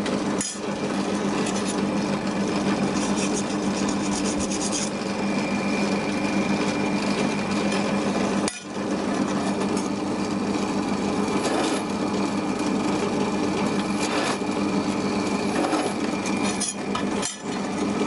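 Small bench drill press running fast with a steady motor hum, its centre drill cutting and countersinking holes in a steel sheet plate with a scraping, grinding sound.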